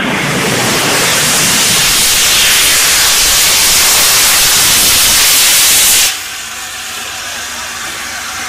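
Steam locomotive venting steam: a loud, steady hiss that drops off sharply about six seconds in, leaving a quieter hiss.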